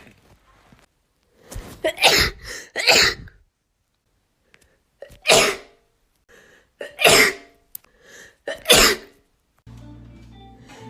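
Young women sneezing, about six sneezes in all: a quick cluster of three, then single sneezes a couple of seconds apart. Background music comes in near the end.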